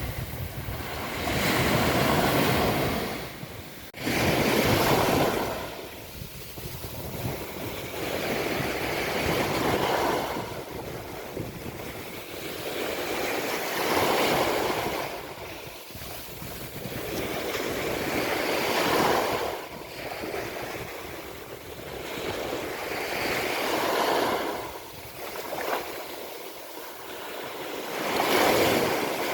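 Sea waves breaking on a beach: the surf swells and fades about every four to five seconds, some seven times.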